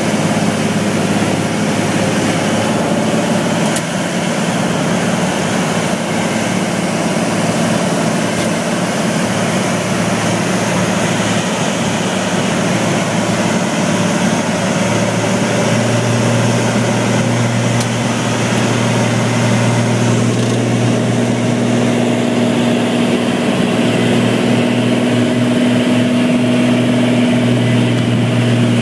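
Single-engine floatplane's propeller engine running steadily, heard from inside the cabin during a landing on water. The low drone gets louder about halfway through.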